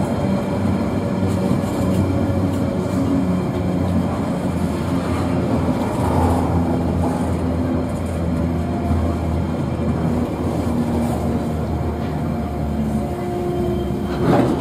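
Diesel-hauled freight train running past, a steady locomotive engine drone over rail and wagon noise.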